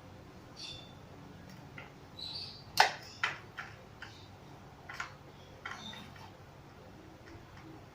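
Scattered clicks and light metallic knocks of a spanner working a pedal loose from a bicycle crank arm, the loudest knock about three seconds in.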